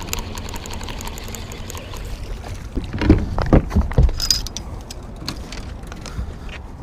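Wind and water around a fishing boat on open water. A quick run of heavy thumps comes about three seconds in.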